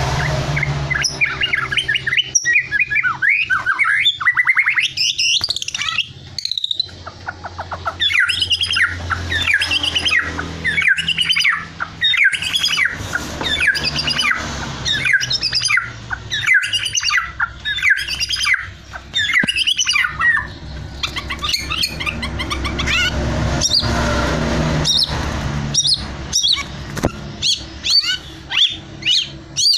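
Caged male white-rumped shama (murai batu Borneo) singing non-stop in breeding condition: fast, varied whistled and chirped phrases with sharp clicks mixed in.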